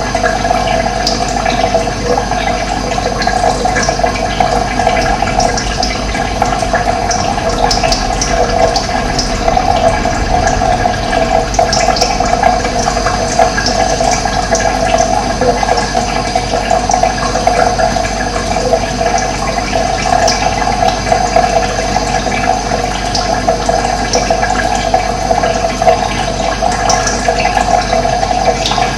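Running water flowing steadily, a continuous rushing sound strongest in the middle range, with no break.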